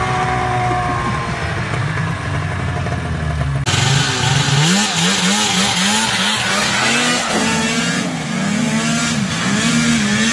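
A snowmobile engine runs steadily, its pitch easing down slightly. About a third of the way in it cuts abruptly to a louder small engine on a homemade ride-on machine, revving up and down about twice a second and then running more steadily.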